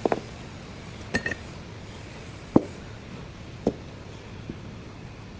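Hard objects clinking together, most likely metal pieces and tools being handled: about five short, separate clinks, the loudest about two and a half seconds in, with a faint steady hiss underneath.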